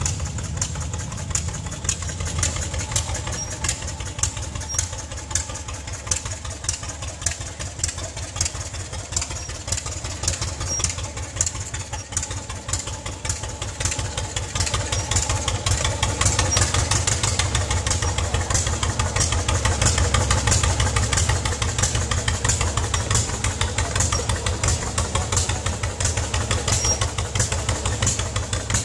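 Vintage John Deere two-cylinder tractor engine running at a slow, steady pace, its exhaust giving a quick even popping beat. It grows louder from about halfway through.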